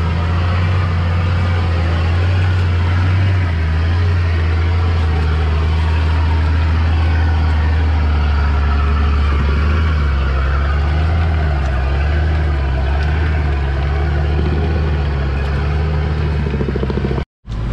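Diesel engine of a 4x4 pickup running steadily at low revs under load as the truck crawls up a steep, muddy, rutted climb, its pitch rising and falling slightly.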